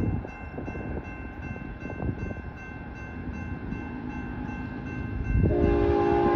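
Approaching diesel freight train led by Norfolk Southern locomotives: a low engine and rail rumble, then the lead locomotive's multi-chime air horn comes on about five seconds in and holds.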